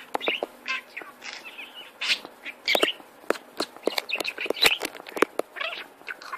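Budgerigar chattering: a fast, continuous run of short chirps, sharp clicks and warbled notes.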